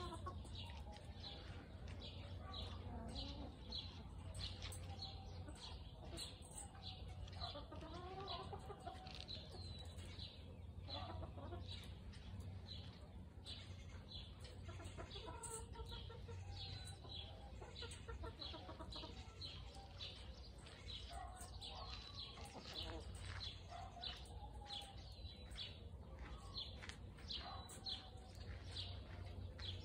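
Chickens clucking and murmuring softly, scattered calls at an easy pace, over a steady series of short high chirps repeated about twice a second.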